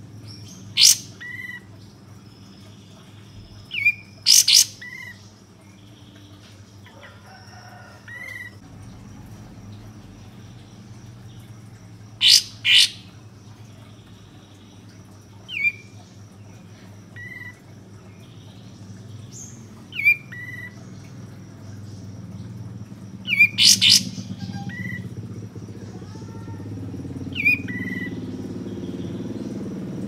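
Kapas tembak bulbul (a caged songbird) giving short, sharp, loud call notes every few seconds, some in quick pairs or clusters, each trailed by softer short falling chirps.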